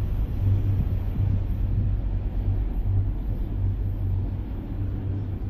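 Low rumble of a Norfolk Southern autorack freight train receding after passing, fading slowly.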